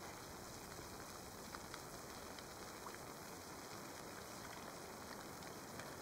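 Campfire burning with a faint steady hiss and small, scattered crackles.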